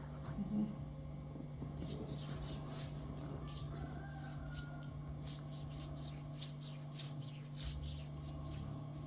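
Hands rubbing and stroking skin during a body massage: soft, irregular brushing strokes over a steady low hum.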